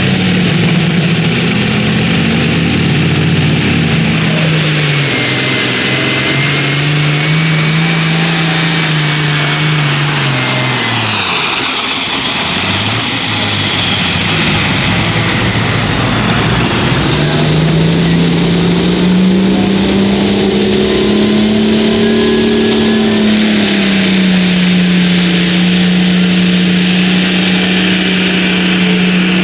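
Hot farm class pulling tractor's turbocharged diesel engine running hard under load. Its pitch wavers and drops sharply about twelve seconds in, then climbs and holds high. A high whistle slides up and down above the engine.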